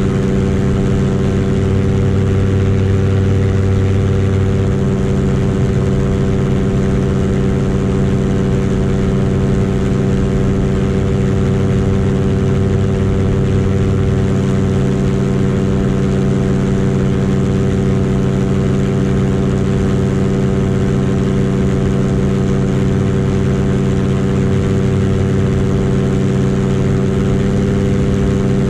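Paramotor engine and propeller running steadily under power while climbing, a constant even drone with no change in pitch.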